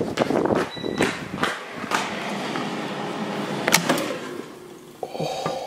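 Footsteps and handling knocks on a hard tile floor, then a sharp click as an air fryer basket is pulled open.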